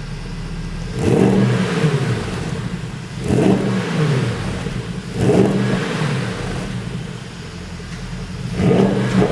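Porsche Panamera GTS V8 engine, tuned for exhaust pops, idling and blipped four times. Each rev rises in pitch and falls back to idle, and the last blip comes near the end.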